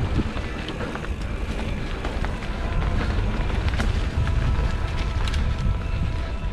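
Mountain bike being ridden over a rough trail: wind buffeting the camera microphone as a low rumble, with scattered clicks and rattles from the bike over the ground.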